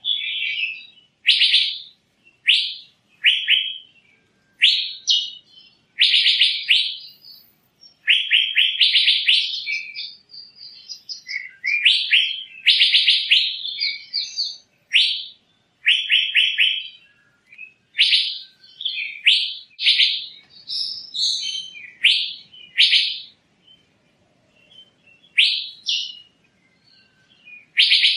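Asian fairy-bluebird calling over and over: short, loud calls about a second apart, some coming in quick pairs or runs.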